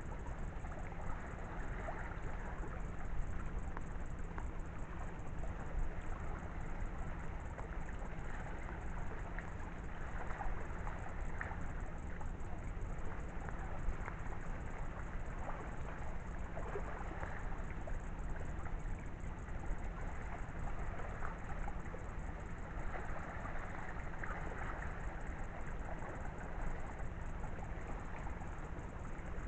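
Low, steady wind rumble on the microphone, with scattered faint crackles.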